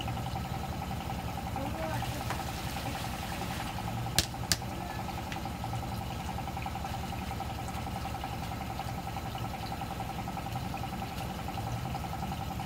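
Water running in a shallow stream under a steady motor hum. Two sharp clicks come about four seconds in, half a second apart.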